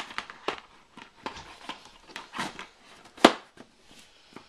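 Plastic DVD cases being handled and shifted on a shelf: scattered clicks, knocks and light rustling, with one sharp clack about three seconds in.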